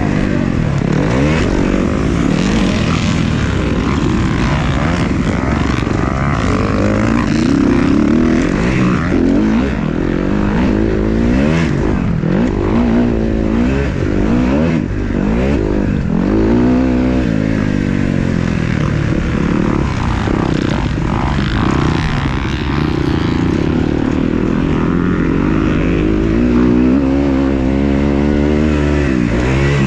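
Several motocross bikes racing, their engines overlapping and revving up and down continually.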